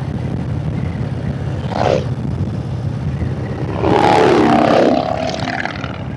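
Harley-Davidson Road Glide's V-twin engine running steadily at cruising speed, heard from the rider's seat. About four seconds in, a louder pitched sound rises and falls for about a second.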